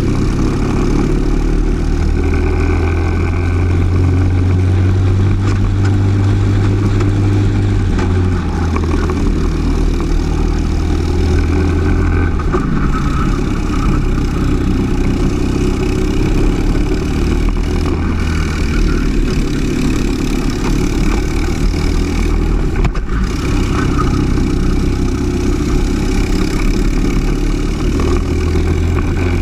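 Briggs & Stratton LO206 single-cylinder four-stroke kart engine running at racing speed, its note dipping and picking back up through the corners.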